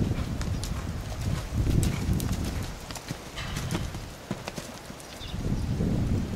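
Hoofbeats of a horse cantering on a sand arena, a run of soft irregular thuds.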